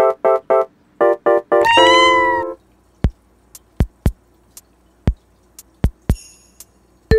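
Background music of short keyboard-like notes, with a Korean shorthair kitten giving one high meow about two seconds in, followed by sparse sharp clicks.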